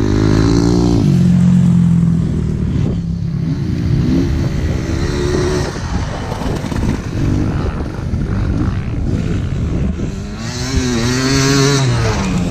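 Dirt bike engines. One bike passes about a second in, its engine note dropping in pitch as it goes by. Others rev further off, and near the end another comes up and passes close, its engine rising and falling as it revs.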